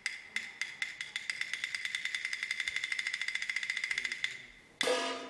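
Added comedy sound effect: sharp pitched ticks that quickly speed up into a fast, even ticking, then thin out and fade about four seconds in. A brief, brighter ringing stab follows near the end.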